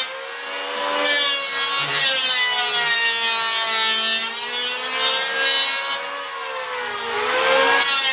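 Electric hand planer running and shaving the wooden slats of a bench seat, a steady whine that sags and recovers in pitch as the blade is pushed along the wood.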